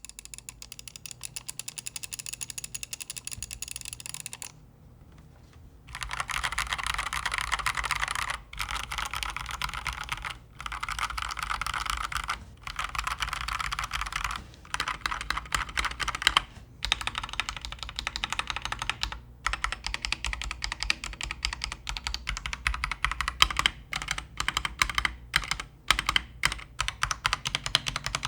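Fast typing on an Akko mechanical keyboard with foam dampening in the case and between plate and PCB: rapid runs of keystroke clacks with short pauses between them.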